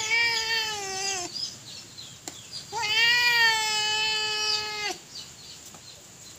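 An animal calling twice: a drawn-out call of about a second, then a longer, steadier one of about two seconds.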